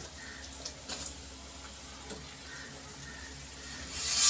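Vegetable broth simmering steadily in a steel kadhai as dry instant-noodle cakes are set into it, with a few faint ticks. Near the end comes a short, loud rasping clatter as the metal lid is brought onto the pan.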